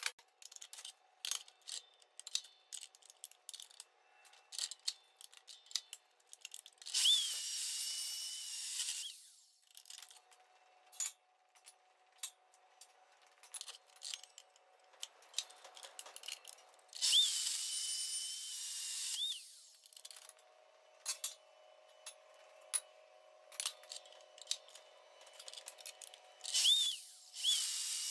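Power saw cutting steel box section in three bursts of about two seconds each, each starting with a short rising-and-falling whine. Between the cuts there are sharp clanks and knocks of steel being handled, over a faint steady hum.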